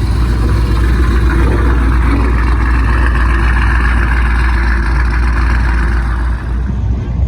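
A car running steadily, a continuous low rumble of engine and road noise.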